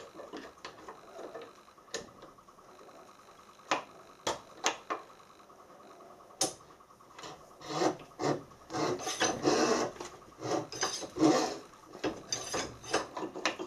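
Keyway broach being pressed through the bore of a Tufnol fibre gear. After a few light clicks of handling, a run of dry rasping scrapes starts about halfway in as the broach teeth cut the keyway.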